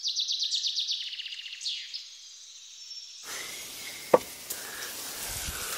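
A small songbird singing a fast, even, high trill that ends in a falling note. After about three seconds a steady outdoor background noise takes over, with one sharp click about a second later.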